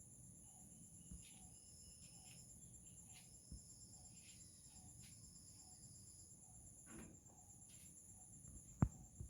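Faint outdoor chorus of insects, crickets or similar, making a steady high-pitched trill. A low short note repeats about every three-quarters of a second, and brief higher calls come now and then. One sharp click sounds near the end.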